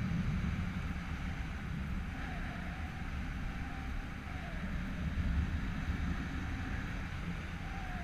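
Wind from paragliding flight buffeting a GoPro's microphone: a steady low rumble with a hiss above it.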